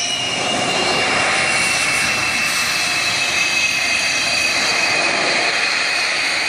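Military fighter jet engines on the runway: a steady jet roar with a high whine that slowly drops in pitch.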